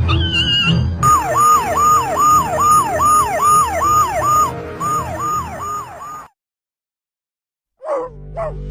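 A siren on a fast yelp, each wail falling in pitch, about two and a half a second, over background music. It cuts off suddenly about six seconds in. After a silent gap of over a second come two short rising sweeps near the end.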